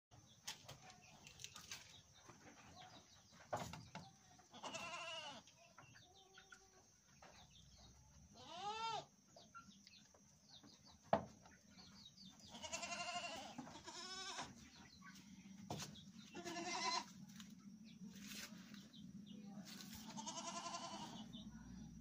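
Dairy goats bleating, about half a dozen wavering calls of a second or so each, some overlapping. A sharp knock sounds midway.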